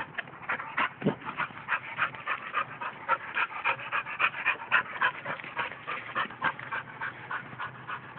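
A dog panting fast and rhythmically, about three to four breaths a second.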